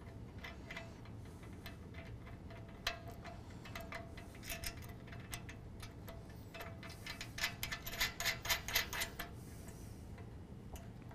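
Light metallic clicks and ticks of a washer, lock washer and nut being fitted by hand onto a steel bolt through a Heim joint. The clicks are scattered at first and come in quick clusters about halfway and again in the last third.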